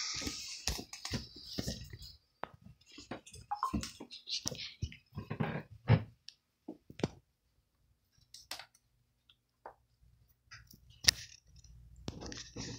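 Irregular clicks and light knocks, thick for the first several seconds, then sparser, with one sharper crack about eleven seconds in.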